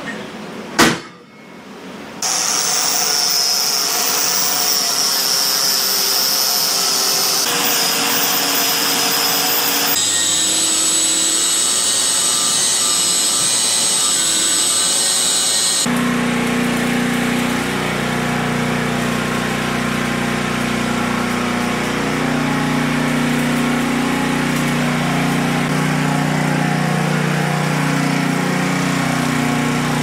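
A power tool running steadily with a high whine, typical of a grinder with a wire brush cleaning off fresh stick welds, after a sharp click about a second in. About halfway through it gives way to a lower, steady machine hum whose pitch shifts in steps every couple of seconds.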